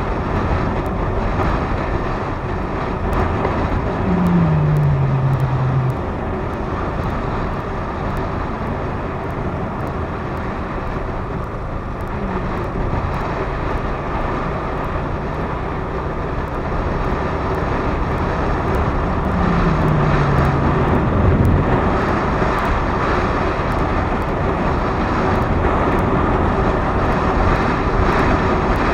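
Motorcycle riding along at road speed, its engine running under steady wind rush on a helmet-mounted camera. Twice, about four seconds in and again about twenty seconds in, a tone falls briefly in pitch, and the whole sound grows a little louder toward the end.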